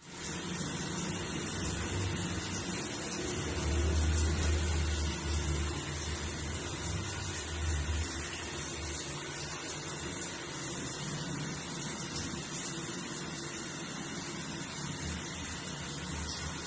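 Water spraying steadily from a shower head, with a low rumble that swells from about three to eight seconds in.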